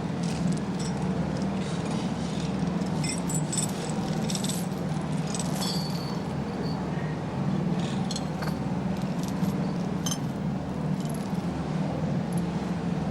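Light metallic clinks, clicks and rattles, scattered irregularly, over a steady low hum.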